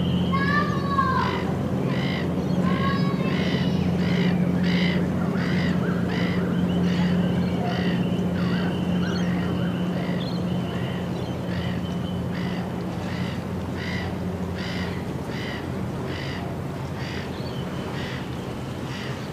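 Footsteps at a steady walking pace, about two a second, over a steady low hum. A bird calls a few times in the first three seconds.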